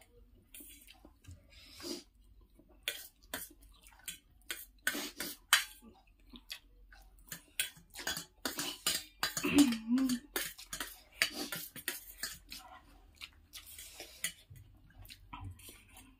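Forks clinking and scraping on steel plates as noodles are twirled and eaten, in quick irregular clicks. A brief wavering vocal sound comes about ten seconds in.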